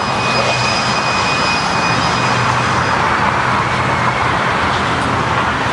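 Steady, loud rushing noise of a running machine, with a thin high whine that fades out about halfway through and a low hum underneath.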